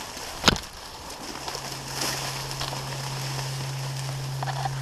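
Dry reeds and cattails rustling as someone pushes through them on foot, with one sharp click about half a second in. A steady low hum starts just over a second in and holds.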